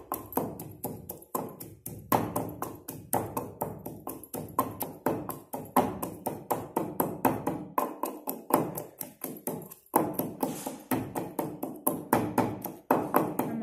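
Wooden pestle pounding garlic cloves, green chillies and salt in a stone mortar, a steady run of knocking strokes about three a second. It is the stage of crushing them to a fine paste for chutney.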